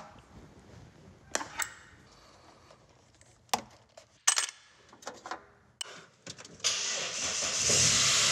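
A few metallic clinks and knocks of tools being handled, then about two-thirds of the way in the Saab 9-3 Viggen's turbocharged four-cylinder engine is started with the key and keeps running. The engine is being run up to temperature to check whether retightened head bolts have cured a coolant leak.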